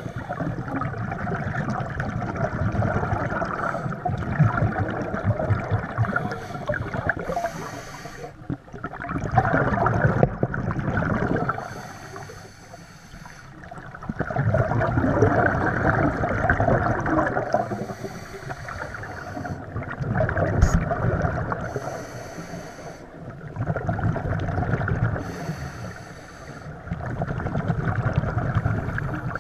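Scuba diver breathing through a regulator underwater: bursts of exhaled bubbles alternating with the hiss of inhaled air, in a slow cycle about every five to six seconds.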